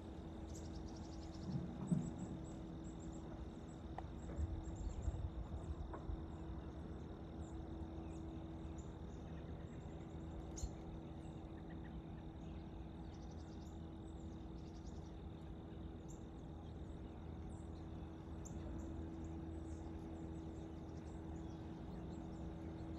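Quiet field ambience: faint, short, high chirps scattered throughout over a steady low hum, with a few soft low thumps in the first six seconds.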